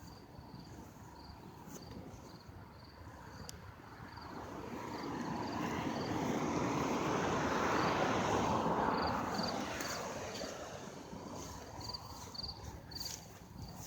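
A vehicle going past, its noise swelling for several seconds and then fading away. Insects chirp in short, evenly spaced pulses throughout.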